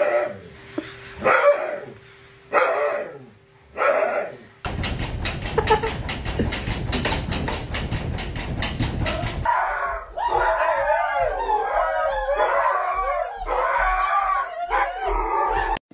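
Siberian husky on a grooming table giving short howling protests, four in a few seconds. Then a dog's claws scratch at a glass door in rapid, even taps, about six a second, for about five seconds. Near the end come several seconds of wavering, pitched howl-like vocalising.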